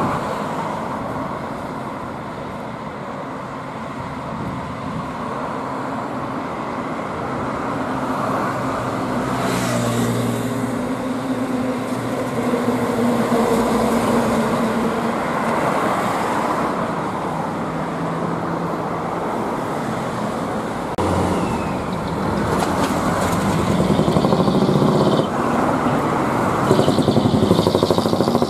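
Diesel dump trucks driving past one after another in city traffic, their engines running with tyre and road noise. The sound swells as each truck goes by.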